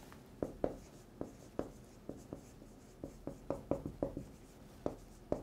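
Marker writing on a whiteboard: a faint, irregular run of about a dozen short strokes as letters are written.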